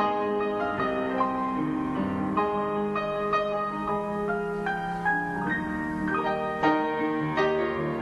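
Background music led by piano, playing slow struck notes and chords.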